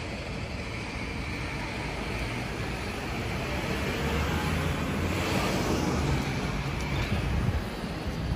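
Steady city street traffic noise, swelling as a vehicle passes about five seconds in.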